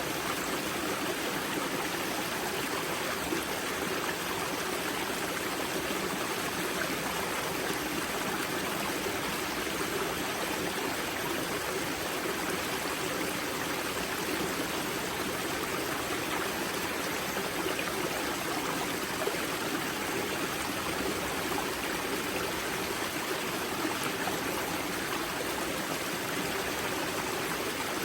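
Water of the Grza river flowing out at its spring: a steady, unbroken rush of stream water.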